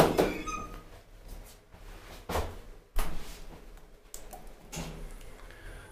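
Suomen Hissiurakointi traction elevator's glass car doors bump shut, followed by a few separate sharp knocks and clicks as the car's panel buttons are pressed by hand.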